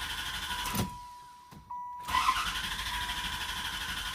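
Starter cranking a warm 1994 LT1 5.7-litre V8 that turns over but won't fire. The cranking stops just under a second in, there is a click, and it cranks again from about two seconds in until near the end. This is the hot no-start fault: the engine starts perfectly cold but will hardly start once it warms up.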